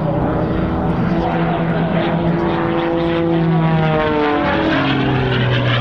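Propeller and engine of an MXS-RH aerobatic plane droning with a strong, even tone. About four and a half seconds in, the pitch slides down as the aircraft passes by.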